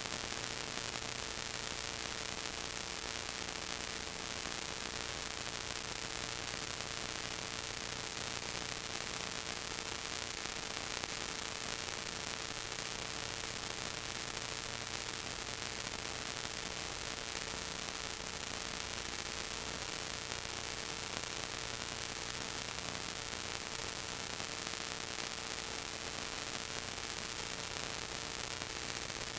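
Steady hiss with a constant hum tone underneath: the empty audio track of a silent 8mm home movie transferred to DVD.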